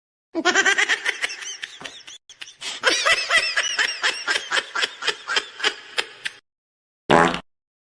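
A comic sound-effect laugh: a high-pitched, rapid string of short 'ha' pulses, about five a second, lasting some six seconds. A brief separate sound follows near the end.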